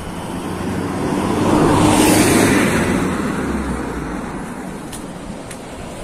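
A motor vehicle passing by: its noise swells to a peak about two seconds in, with a low rumble under it, then fades away.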